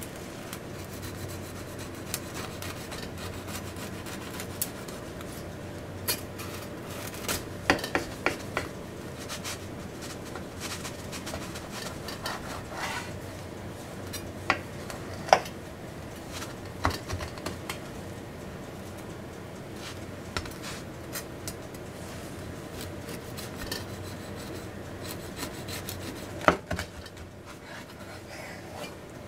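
Knife sawing back and forth through the hard crust of a rice-bran country loaf on a wooden board: a steady crunchy rasping, broken by sharp crackles as the crust cracks.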